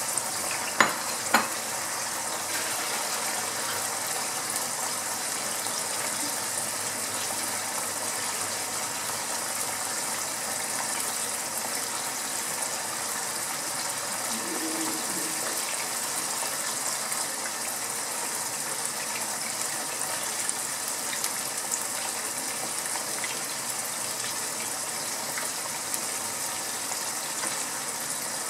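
Chicken pieces frying in hot oil in a nonstick wok: a steady sizzle, with two sharp clicks near the start.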